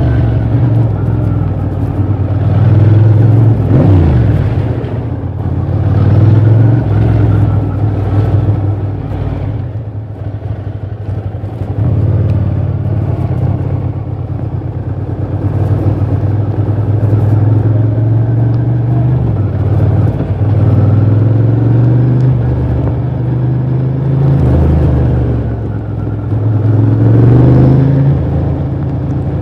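Ducati Monster 620 i.e.'s air-cooled L-twin engine and exhaust running under way, the revs rising and falling several times as the motorcycle accelerates and slows through traffic.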